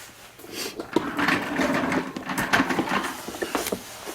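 Hand tools and leather being handled on a cutting board: rubbing and scraping with scattered light knocks and clicks, starting about a second in.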